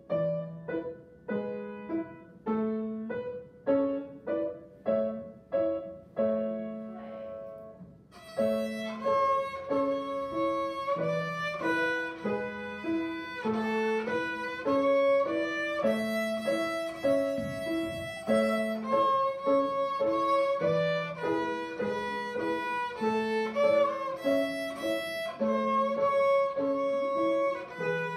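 A grand piano plays an introduction of evenly spaced notes, about two a second, for roughly eight seconds; then a child's violin comes in, bowing sustained notes over the piano accompaniment.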